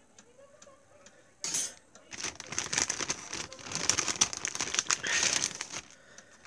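Clear plastic sleeves crinkling and thin metal craft dies clicking as they are handled. A short rustle comes about a second and a half in, then about four seconds of continuous crinkling with many small clicks.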